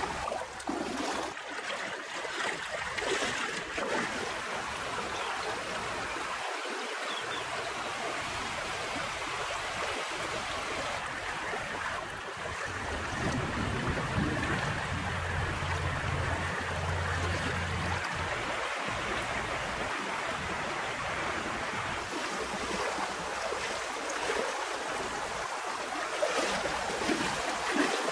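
Shallow, fast-flowing river water rushing steadily, with a low rumble coming in for a few seconds midway.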